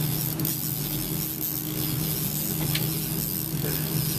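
A boat's engine running steadily at trolling speed, a low hum under wind and water noise, with the mechanical whir of a trolling reel being cranked against a hooked fish.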